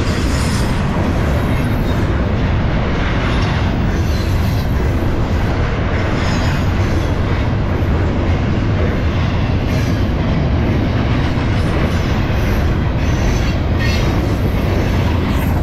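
Double-stack container well cars of a freight train rolling past: a steady loud rumble of steel wheels on the rails, with wheel clicks and brief high wheel squeals every few seconds.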